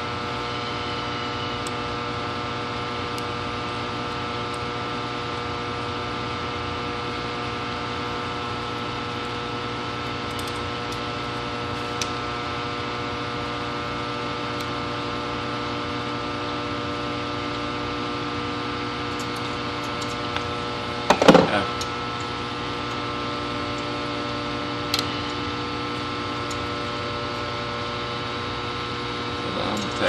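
Steady electrical hum with many even overtones, unchanging throughout. A short, louder noise cuts in about twenty seconds in, with a couple of faint ticks elsewhere.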